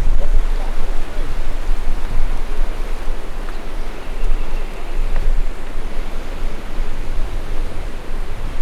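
Fast-flowing river water rushing through a rocky gorge, a loud, steady rushing noise with a deep, uneven rumble underneath.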